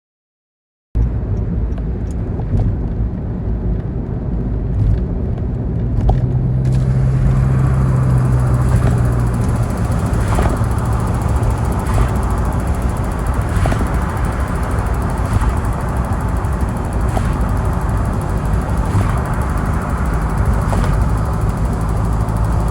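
Daihatsu Taft kei car running with a steady low rumble, which grows fuller about six seconds in. A faint tick repeats about every second and a half to two seconds: the mysterious abnormal noise the owner is chasing.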